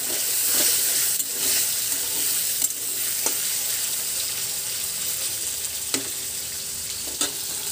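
Paneer cubes sizzling in hot oil in a steel kadai, frying until lightly browned. A metal spatula turns them, scraping and clicking against the pan a few times.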